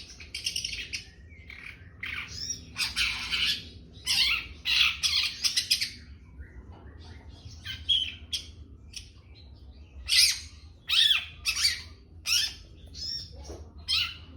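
Juvenile long-tailed shrike (cendet) calling: a run of short, harsh, scratchy calls in quick clusters, mixed with a few thinner chirps.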